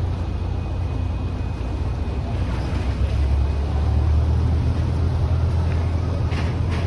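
Large cruise ship passing close on the river, a steady low rumble from its engines that swells about three seconds in.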